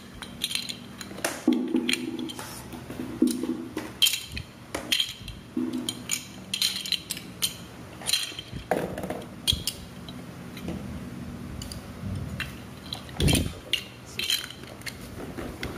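Chunky plastic toy building blocks clacking and clicking against each other as they are picked out of a pile and gathered in the hand, in irregular clicks, with one duller, heavier knock near the end.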